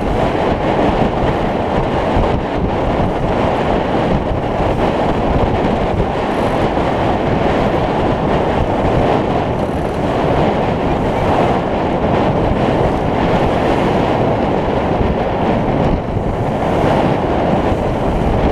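Heavy, steady wind buffeting the microphone, over the rush and splash of water along a sailboat's hull as it sails heeled through choppy waves.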